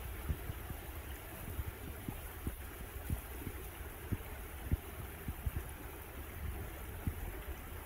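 Small woodland stream running over stones, a steady rush of water with frequent short gurgles and plops.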